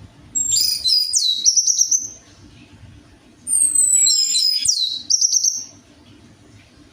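Orange-headed thrush singing two loud phrases about a second apart, each of high whistles, falling sweeps and a fast trill.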